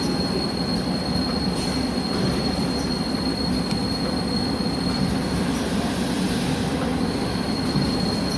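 Powder bag-packing machinery running steadily: a constant rumble with a thin high whine over it, which drops out for about two seconds past the middle and then returns.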